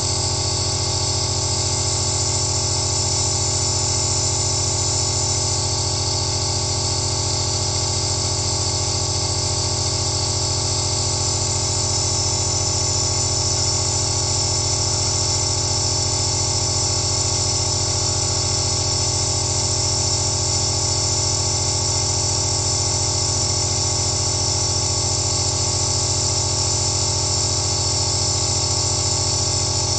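Compressor nebulizer running steadily: a low motor hum with steady tones above it, under the hiss of mist being driven through the face mask.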